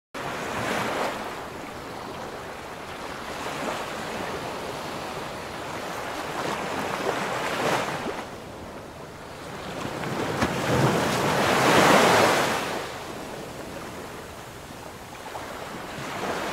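Sea waves washing in slow swells that rise and fall every few seconds, the biggest about twelve seconds in.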